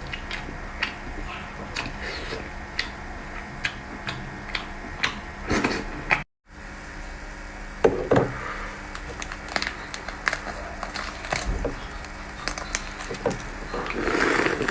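Close-miked eating sounds: irregular sharp clicks and smacks of chewing, with a brief cut to total silence about six seconds in and a louder rustling stretch near the end.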